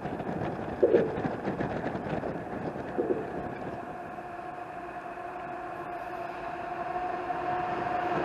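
Freight train approaching: a steady low tone from the train grows louder over the last few seconds against wind noise. Two short bird calls about one and three seconds in.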